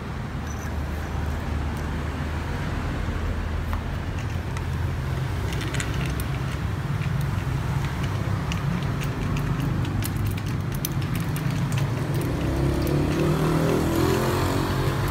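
Steady low background rumble of motor traffic, with a few light clicks as a bolt and handle are fitted to a folding bed's metal frame.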